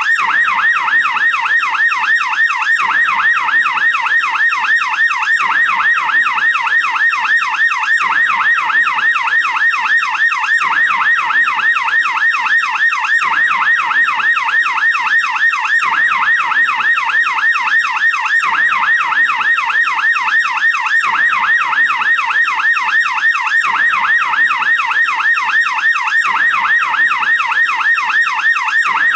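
American police car siren in yelp mode: a steady, rapid warble sweeping up and down in pitch about three times a second, without a break.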